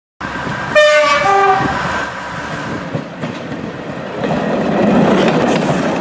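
Train horn sounding two short notes, a higher one then a lower one, about a second in. Then the rumble of a train at the platform swells and stays loud.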